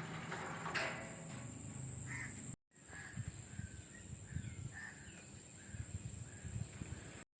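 Birds calling, many short calls repeated through the clip, broken by a brief silent gap a third of the way in.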